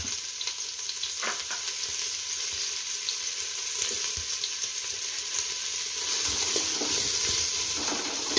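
Sliced onions sizzling steadily in hot ghee in a stainless-steel pot. Near the end a spatula stirs them against the steel.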